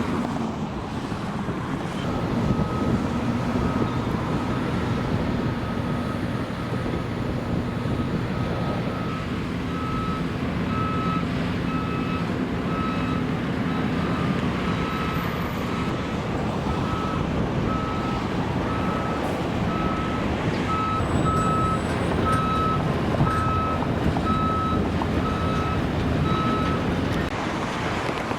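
A construction vehicle's reversing alarm beeping steadily, a little over once a second, over the steady rumble of heavy machinery running. The beeping starts about two seconds in and stops near the end.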